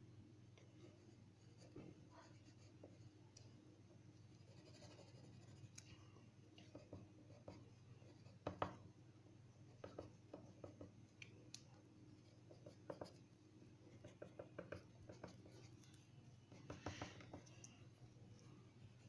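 Drawing strokes on paper: faint, quick scratchy hatching in short bursts, coming thicker in the second half, over a faint steady low hum.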